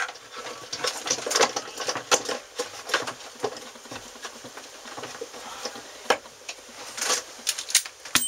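Irregular light clicks and taps of hand work as an electrical outlet and its wiring are reconnected.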